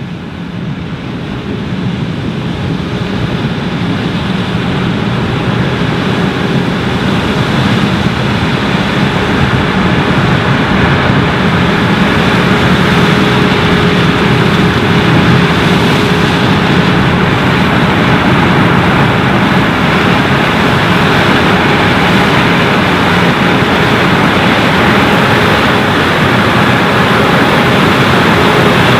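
Fendt IDEAL 9T combine's 15.2-litre MAN diesel and threshing machinery running steadily during corn harvest, a dense machine noise with a faint steady hum. It fades up over the first several seconds, then holds.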